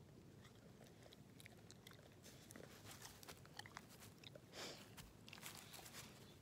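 Faint wet mouth clicks and smacks from a dog close to the microphone, with a short rustle about four and a half seconds in.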